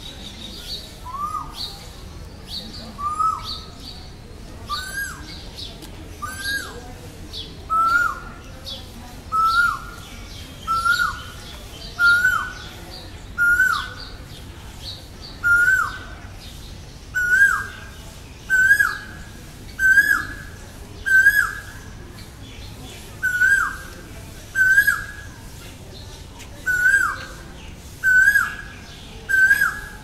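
Male Asian koel calling over and over, a two-part 'ko-el' note repeated about every second and a half, about nineteen times, each a little higher and louder than the last. A smaller bird chirps faintly and high in the background.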